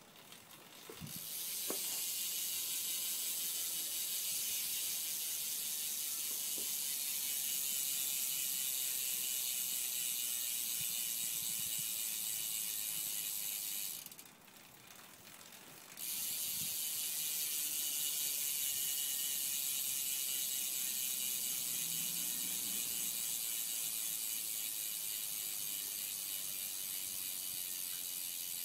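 Proper K7 BMX cassette hub freewheeling as the rear wheel spins, its pawls clicking so fast they make a steady high buzz. It starts about a second and a half in, cuts out for about two seconds midway, then starts again.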